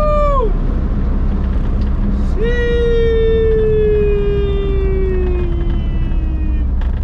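Inside the cabin of an H-series-swapped Honda Civic on the move: steady engine and road rumble. A short pitched note falls away right at the start, and a long pitched note comes in about two and a half seconds in and slowly falls over about four seconds.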